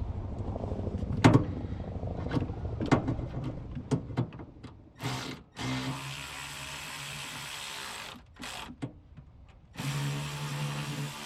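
A few metal clicks and knocks as the throttle-lever handle is fitted, then a power drill driving the handle's Allen-head bolts, run in several short bursts that start and stop abruptly.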